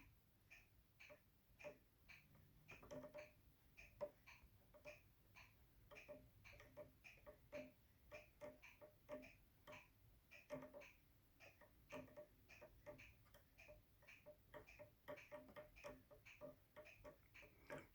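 Faint, irregular clicking, a few clicks a second with short gaps, from an old Sessions mechanical mantel clock that has been wound but will not run.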